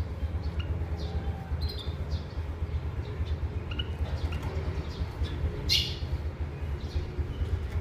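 Short, scattered chirps from small caged finches, a canary and a white-headed munia, with one louder chirp just before six seconds in. A steady low hum runs underneath.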